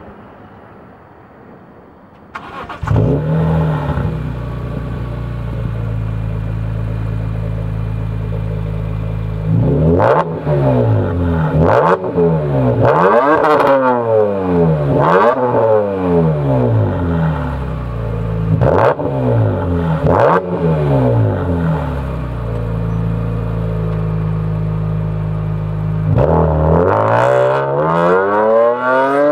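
BMW E46 M3's S54 inline-six exhaust note through a Gruppe M replica exhaust with two AR20 resonators: the engine starts about two and a half seconds in and settles into a steady idle, is blipped in a string of short revs rising and falling, idles again, then revs up long near the end as the car drives off.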